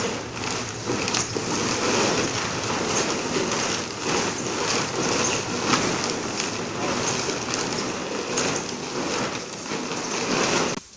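Groundnut (peanut) seeds tumbling and rattling inside a plastic sack sheet as it is shaken by its corners, with the plastic rustling, which mixes the freshly sprayed seed-treatment solution through the seed. The sound cuts off suddenly near the end.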